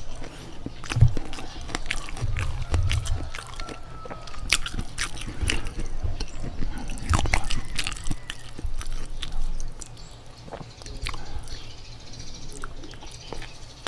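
Close-miked chewing and mouth sounds of a person eating, with frequent wet clicks and smacks.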